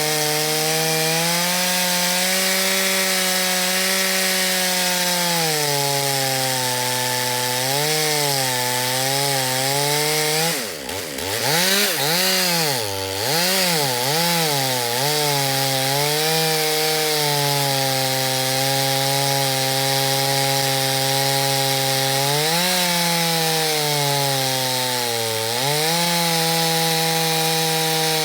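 Petrol chainsaw sawing through a thick log, its engine running at high speed with the pitch sagging and recovering under the cut. About ten seconds in the revs drop sharply, then rise and fall several times in quick succession before settling again; another short dip comes near the end.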